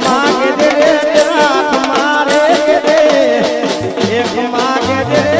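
Gujarati garba folk music: a steady drum beat under an ornamented, wavering melody line.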